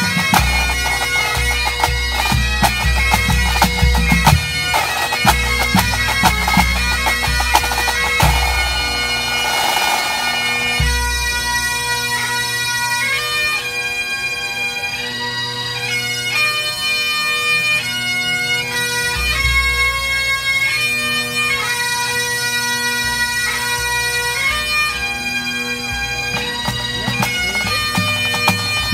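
A pipe band of Great Highland bagpipes and drums playing a competition medley over the pipes' steady drones. About eleven seconds in the dense snare drumming drops out, leaving the pipes on a tune of longer held notes with some low drumming underneath; the drum strokes pick up again near the end.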